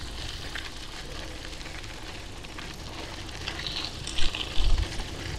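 Mountain bike riding along, its tyres giving a steady hiss and crackle on the path, with low gusts of wind buffeting the microphone about four seconds in.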